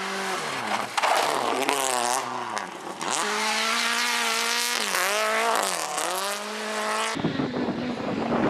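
Rally car engine revving hard on a gravel stage, its pitch sinking and climbing again several times as the driver lifts off and changes gear. About seven seconds in the sound cuts to a rougher, noisier car passing on gravel.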